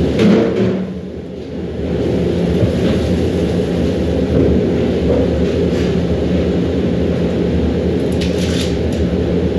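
Steady low rumble of a commercial kitchen range heating large stockpots of boiling water, with a short clatter at the very start and a few faint clicks near the end.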